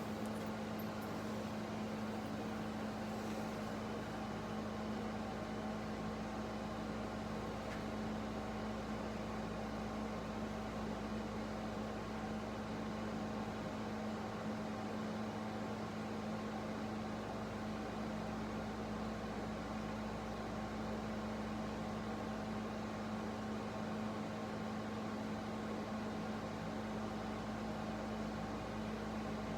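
Steady low hum over a faint even hiss, with no distinct events: background machine or room noise.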